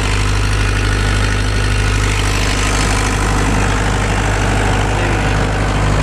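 Case CX75SR mini excavator's diesel engine idling steadily.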